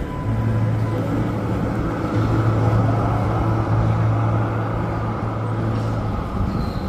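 Large road vehicle running with a steady low drone over road noise; the drone eases off about six seconds in.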